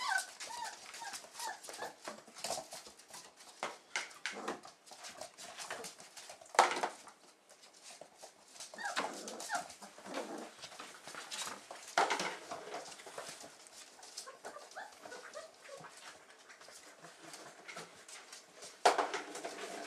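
Several young puppies whimpering and squeaking in short, high whines, worked up while waiting to be fed. Scattered light clicks and a few louder sharp knocks come in between.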